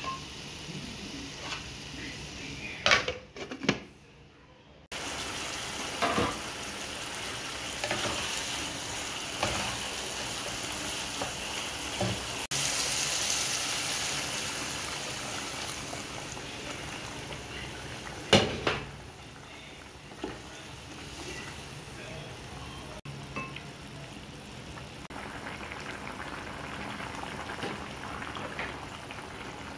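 Ash gourd pieces and hilsa fish sizzling in oil and spices in a nonstick pan, with a few sharp knocks against the pan. About twelve seconds in, water is poured into the hot pan and hisses, and then the curry bubbles as it boils.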